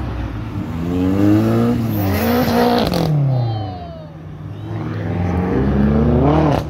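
Car engines revving as cars accelerate away. One rev climbs in pitch and falls off about three seconds in, and another builds up toward the end.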